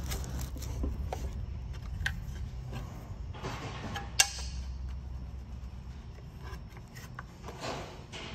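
Quiet handling sounds of a strapped-down battery and its aluminium shuttle frame: light rubbing and small clicks, with one sharp click about four seconds in. A faint low hum underneath fades out about halfway.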